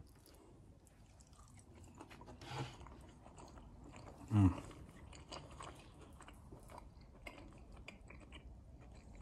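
A person chewing a mouthful of grilled steak, soft wet crunches and clicks of the jaw close to the mic, with a brief hum from the voice about four and a half seconds in.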